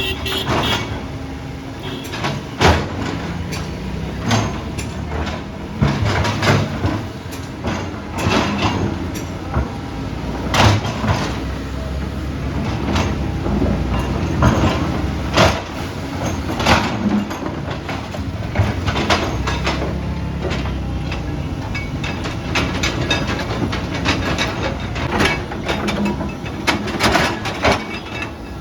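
Heavy earthmoving machine's diesel engine running under load, with frequent irregular metal clanks and knocks.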